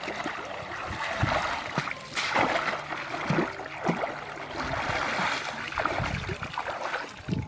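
Shallow muddy water splashing and sloshing in irregular bursts as a person wades through it and works a woven basket in and out of the water by hand.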